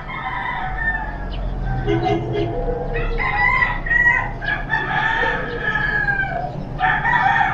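Roosters crowing, several long calls one after another.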